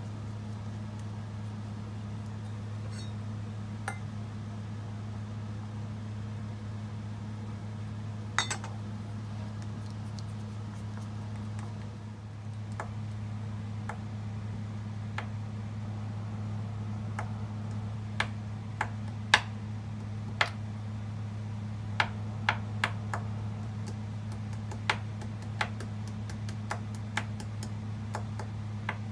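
Metal teaspoon clinking against a small ceramic spoon and dish in sharp, separate clinks, a few at first and many more in the second half. A steady low hum runs underneath.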